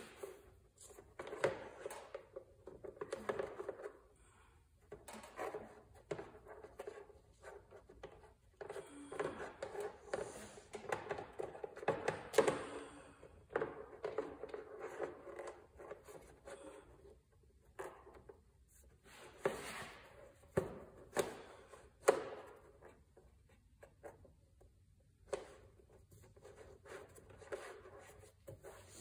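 Engine top cover being shifted and pressed into place by hand while a screw is worked into its thread, making irregular scraping and rattling with a few sharp clicks in the second half.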